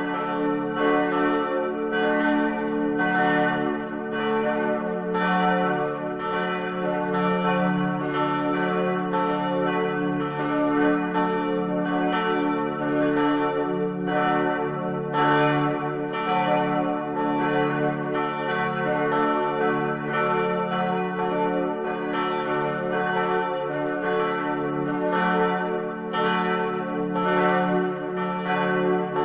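Several church bells ringing in steady succession, each strike ringing on and overlapping the next into a continuous peal.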